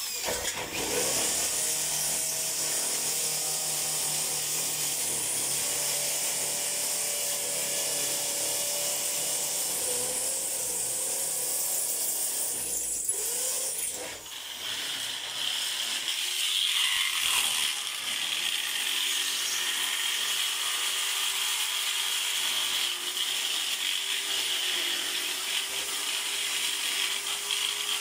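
A power tool running continuously, its motor pitch wavering as the load changes, with a short dip about halfway through.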